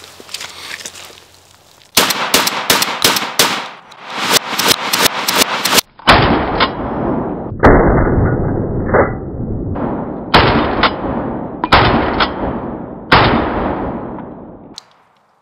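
Remington 11-87 12-gauge semi-automatic shotgun emptying its magazine tube: a fast string of sharp shots about two seconds in. It is followed by a series of longer, duller blasts, each ringing on, spaced about a second apart, that stop shortly before the end.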